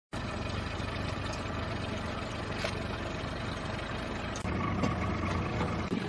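Steady drone of a boat engine running, a low hum with a few faint ticks. About four and a half seconds in it briefly dips and comes back a little louder.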